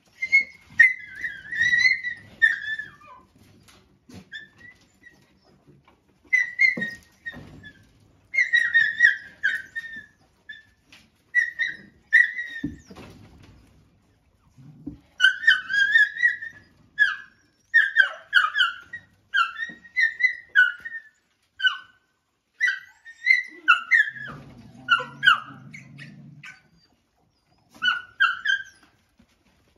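Dogs crowded at a feeding trough whining and yelping in repeated clusters of short, high, falling cries. A low growl lasts about two seconds near the end. These are the sounds of dogs squabbling over food.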